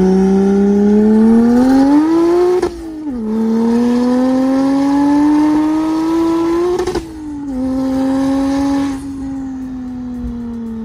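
BMW 335's straight-six engine pulling hard through the gears: the engine note climbs, drops sharply at an upshift about three seconds in, climbs again, drops at a second upshift about seven seconds in, then holds and slowly eases off at cruise.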